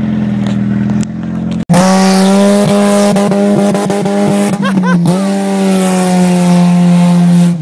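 A Toyota Corolla's four-cylinder engine running hard at high, steady revs, getting much louder about two seconds in, with a hiss of spinning tires on snow over it.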